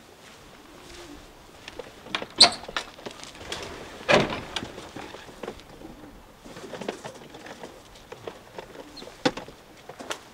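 Domestic pigeons cooing low, with scattered clicks and knocks from the wooden pigeon-loft door and its metal bolts being handled. The loudest is a sharp clatter about four seconds in.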